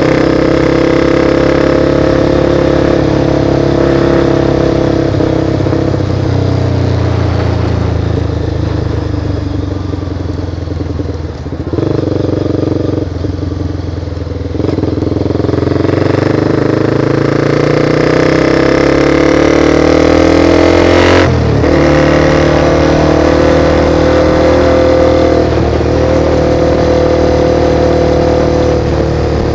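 Honda CBR sport motorcycle engine heard from on board while riding. It runs steadily at first, its note falls as the bike slows from about eight seconds in, then rises again under acceleration. About 21 seconds in there is a sudden break in the note at a gear change, and it then settles into a steady cruise.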